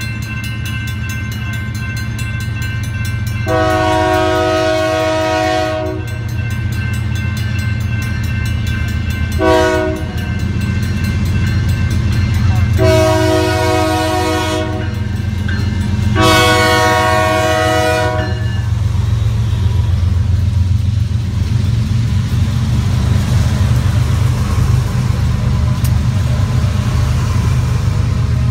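BNSF freight diesel's air horn sounding the grade-crossing signal (long, long, short, long) as the train approaches, over the low rumble of its engines. The horn stops about two-thirds of the way in, and the steady rush of the freight cars rolling past follows.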